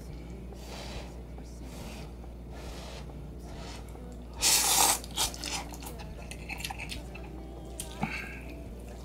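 Someone eating hot instant noodles: soft chewing and mouth sounds, with one loud, breathy slurp about halfway through.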